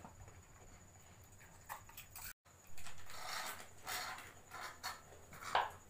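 Faint crinkling and rustling of a crisp packet being handled and dug into, with scattered clicks and a louder rasp near the end.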